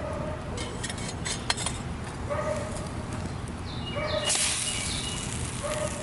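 Short animal calls at a steady pitch, repeated several times, with a few light clicks in the first two seconds and a brief hiss about four seconds in.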